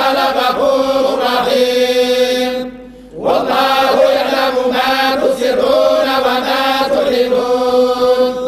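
A group of men reciting the Quran together in unison, in the Moroccan collective hizb style, chanting long drawn-out held notes. Two phrases, broken by a short breath pause about three seconds in.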